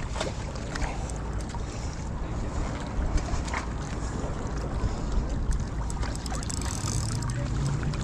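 Wind buffeting the microphone in a steady low rumble, with sea water washing against breakwater rocks and scattered faint clicks.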